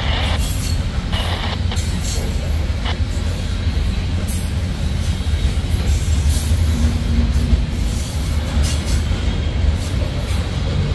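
Freight train cars rolling past: a steady low rumble of wheels on rail, with scattered clicks and clanks.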